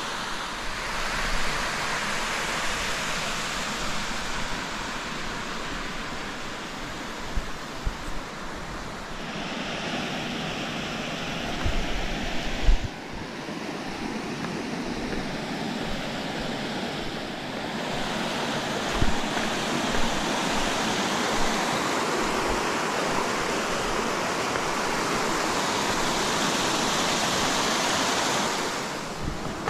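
Steady rush of a creek's small waterfalls spilling over shale ledges, a little louder in the last third. A few soft thumps break in, the loudest about 13 seconds in.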